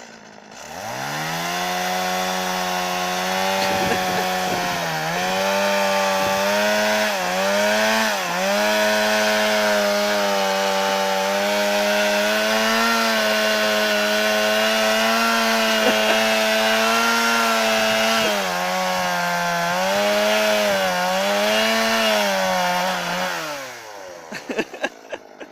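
Two-stroke chainsaw revved up to full throttle and cutting, its engine pitch dipping several times as it bogs under load. It winds down to idle near the end.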